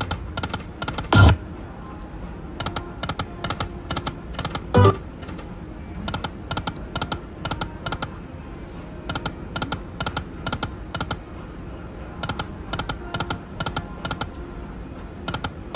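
Lightning Link slot machine spinning again and again: each spin ends in a quick run of about five clicking reel-stop sounds, repeated every few seconds over the machine's background sound. Two loud thumps stand out, about one and five seconds in.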